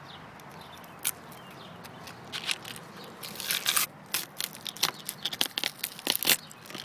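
Tough triggerfish skin being peeled off the flesh, tearing with irregular crackles and short rips where connective tissue lets go.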